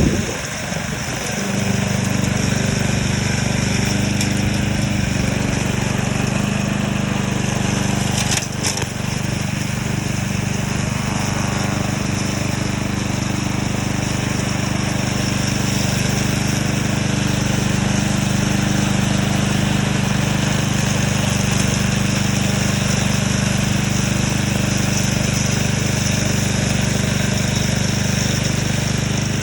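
Remote-control lawn mower's engine running steadily, with one sharp knock about eight and a half seconds in.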